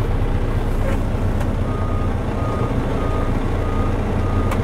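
Freightliner dump truck's diesel engine idling, with its backup alarm beeping: about five short, evenly spaced beeps on one pitch, starting a little under two seconds in, quieter than the engine. A few sharp clicks come through as well.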